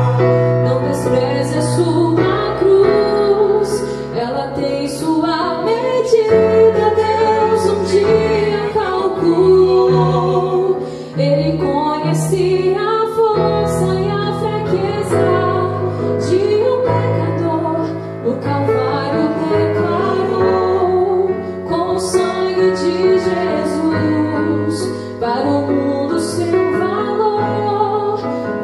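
A woman singing a slow gospel song over electronic keyboard accompaniment with held bass notes.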